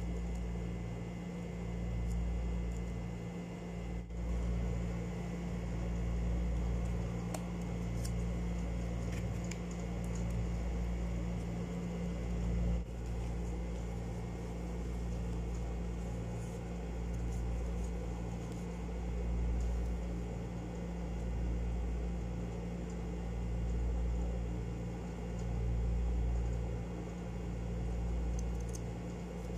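A steady low mechanical hum that swells and fades every two seconds or so, with a few faint clicks now and then.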